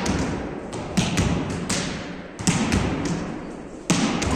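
Volleyballs being hit by hands and forearms in passing, sharp smacks about every second and a half with lighter hits and thuds between, echoing in a large gym hall.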